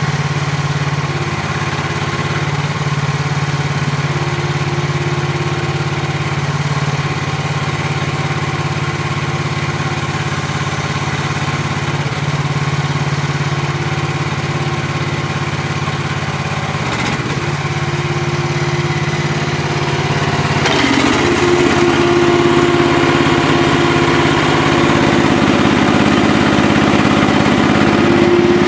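Small gasoline engine of a 1-ton mini excavator running steadily. About twenty seconds in it gets a little louder, with a higher note coming through.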